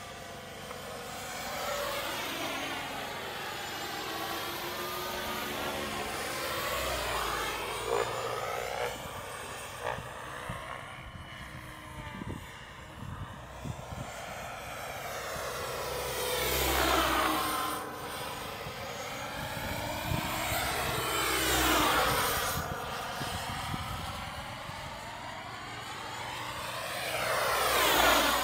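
Turbine-powered RAW 700 RC helicopter flying aerobatics: its turbine whine and rotor noise sweep up and down in pitch as it moves about. It swells loudest on three close passes in the second half, the last near the end.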